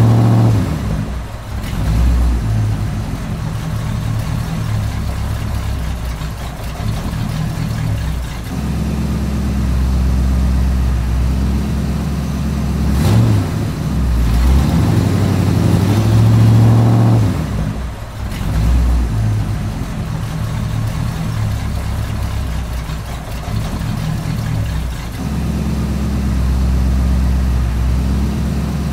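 Low, steady engine drone from radio-controlled construction models, an excavator and an articulated dump truck, stepping up and down in pitch and level every few seconds as the machines work.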